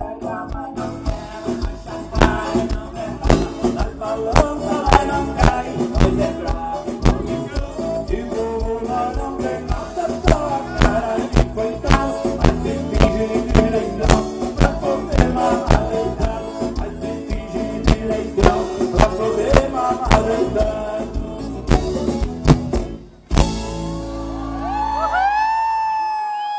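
Live sertanejo band with accordion, acoustic guitar and a steady drum beat playing a dance number. The music cuts off suddenly about 23 seconds in, leaving a steady low held tone, then several pitched sounds that rise and fall near the end.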